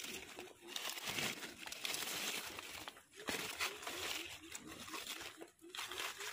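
Hands pushing aside wet fallen leaves on a forest floor, crinkling and rustling in short irregular bursts with a few sharp crackles.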